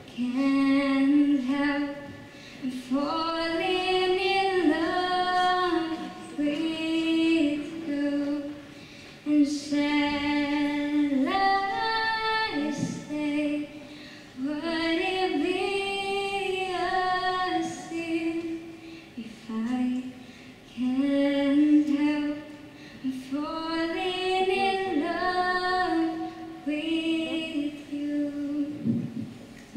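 A woman singing solo in slow phrases of long, held notes, with short pauses for breath between phrases.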